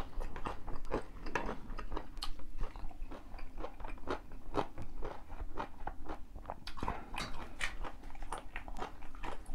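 A man chewing food with chopsticks at hand, many short irregular crunching bites in quick succession.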